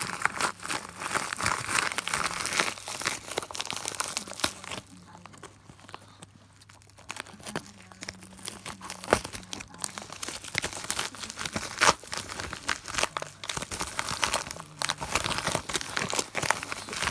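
Black plastic mailer bag crinkling and crackling as hands handle and open it, with a quieter pause a few seconds in.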